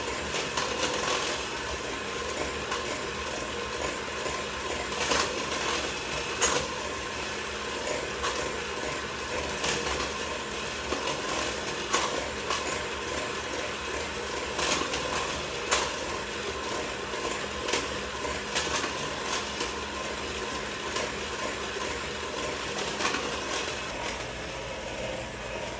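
Electric mixer running steadily, beating eggs and vanilla into creamed butter and sugar for cake batter, with irregular sharp ticks of the beaters against the bowl.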